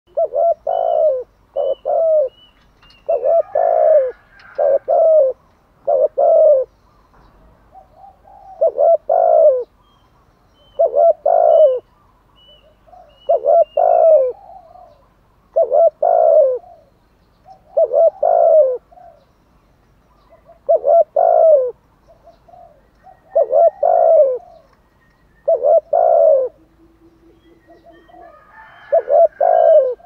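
Spotted dove cooing over and over, a short phrase of low coos about every two seconds. Faint high chirps from a small bird come through near the start, around the middle and near the end.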